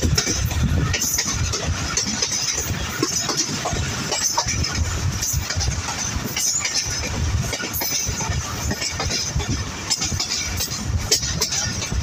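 Pakistan Railways passenger coach running at speed: steady wheel-on-rail noise with irregular clicks and rattles from the track, and wind buffeting the microphone.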